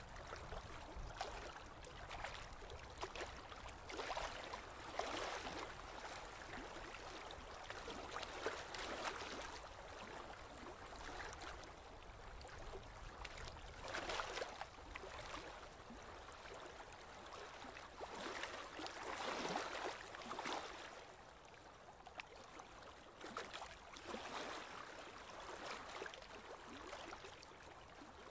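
Water lapping and splashing against a small boat's hull in irregular surges, over a low rumble.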